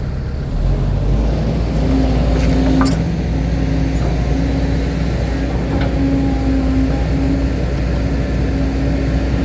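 Diesel engine of an excavator running steadily, getting louder about half a second in as it takes load, with a steady hum over it.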